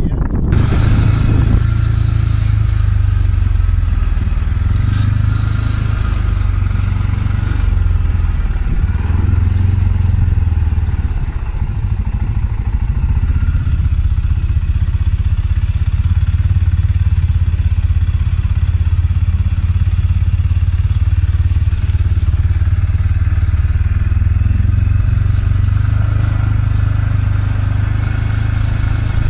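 ATV engine running steadily with a low hum while riding a dirt trail.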